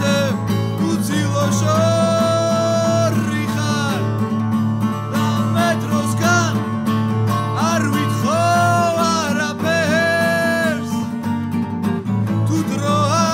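Acoustic guitar strummed steadily while a man sings long held notes that slide into and out of pitch.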